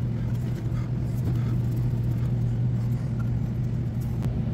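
Steady low machine hum from the running HVAC equipment, with a few light clicks and taps as the plastic cover of the UV light unit is fitted.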